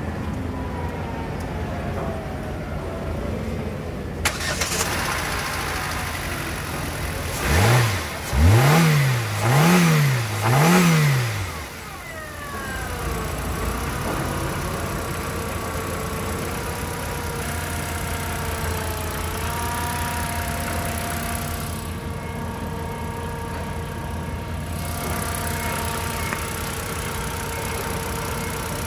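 2015 Hyundai Accent's four-cylinder engine idling. About eight seconds in it is revved three times in quick succession, the pitch rising and falling each time, then it settles back to a steady idle.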